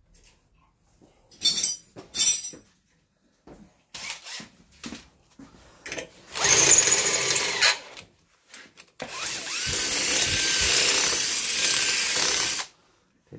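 Power drill widening a pilot hole in a plastic delivery box to take a 12 mm bolt: a few sharp clicks first, then a short run of the drill and a longer steady run of about three and a half seconds near the end.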